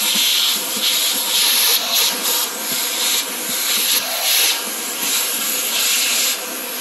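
Vacuum cleaner running with its hose nozzle down in an espresso machine's grinder chamber, sucking up loose coffee grounds. The loud suction hiss swells and drops repeatedly as the nozzle is moved around.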